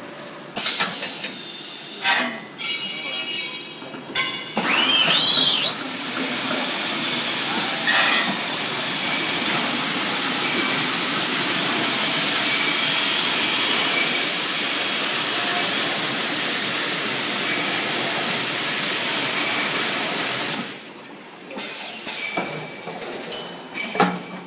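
A 100-bottle-per-hour filling machine for 5-gallon water bottles at work: a few mechanical knocks and clanks, then a loud steady hiss of water spraying inside the machine's enclosed bottle chamber. The hiss starts suddenly about four seconds in and cuts off some sixteen seconds later, with more clatter near the end.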